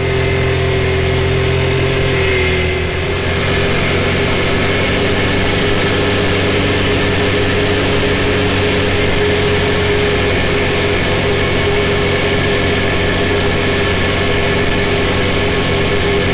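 Can-Am Maverick X3 side-by-side running at steady highway speed, its turbocharged three-cylinder engine droning evenly under wind and road noise. The engine note eases slightly about two and a half seconds in, then holds.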